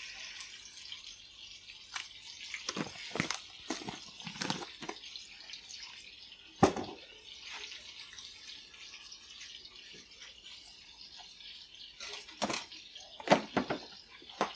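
A metal ladle clinking and knocking against a metal cooking pot, with faint liquid sloshing, as braising liquid is stirred and pots are handled. Irregular clinks come in a cluster, with the sharpest knock about halfway through and a few more near the end.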